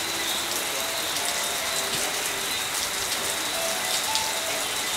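Steady hiss and patter of falling water, with fine scattered ticks and a thin, steady high tone.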